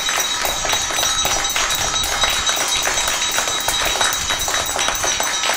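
Many hands clapping at once, a dense run of overlapping claps, with a steady high ringing tone running through it.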